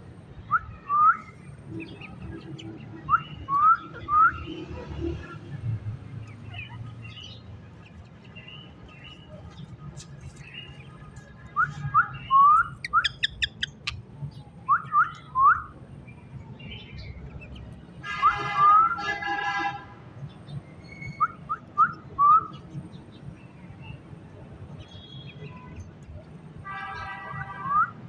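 Rose-ringed parakeets (Indian ringnecks) giving short rising whistles in runs of two or three. There are two longer harsh screeching calls, one about two-thirds of the way through and one near the end.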